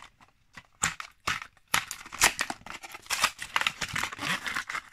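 Clear plastic blister of a Hot Wheels card pack being peeled and torn open by hand: a run of irregular crackling and crinkling of stiff plastic and card that starts about a second in.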